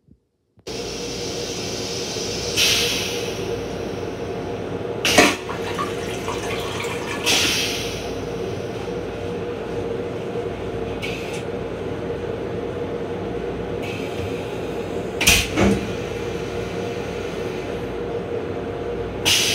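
Rail-car toilet with a stainless steel bowl going through its flush cycle: a steady running noise with a hum, three short hissing sprays of rinse water, and two sharp knocks between them.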